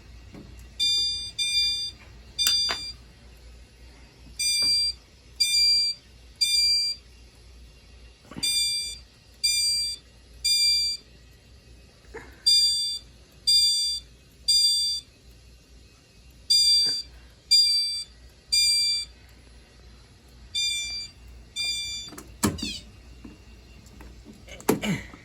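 Fire alarm chime strobe sounding in the temporal-three evacuation pattern, set off by a smoke detector test: three bright chime tones, a pause, then the next three, about every four seconds. Six rounds sound, and the last is cut short after two tones when the system is silenced.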